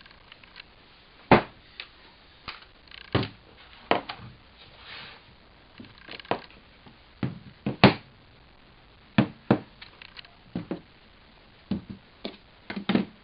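Irregular knocks and clicks of cordless power tools being handled, picked up and set down on a hard surface, about a dozen at uneven intervals, with the loudest knocks a little over a second in and at about eight seconds.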